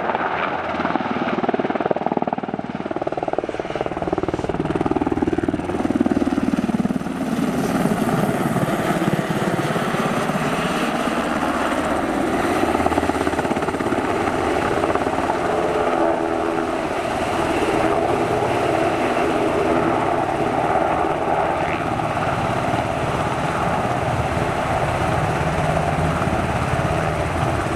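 Sikorsky S-70 Black Hawk helicopter's rotors and twin turbine engines running loud and steady as it flies in low and close, dropping in pitch as it sweeps past, then hovering just above the ground.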